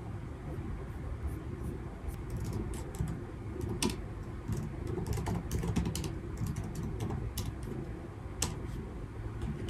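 Typing on a laptop keyboard: irregular key clicks, starting about two seconds in, over a steady low rumble.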